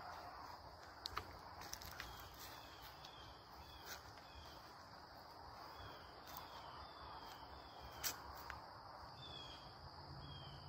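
Faint woodland ambience: a steady high-pitched insect drone with runs of short falling chirps, and a few sharp clicks, the loudest about eight seconds in.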